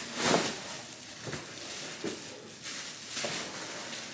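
Plastic wrapping crinkling and rustling as an artificial Christmas garland is pulled out of its bag, in several short bursts, the loudest just after the start.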